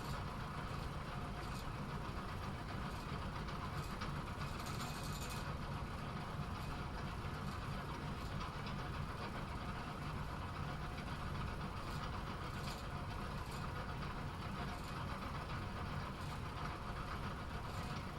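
Bowling pinsetter machinery running with a steady low hum, with a few faint clicks and a brief hiss.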